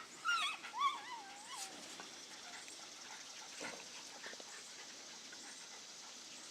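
A puppy whining: a couple of high-pitched, wavering whimpers in the first second and a half, then faint scattered rustles.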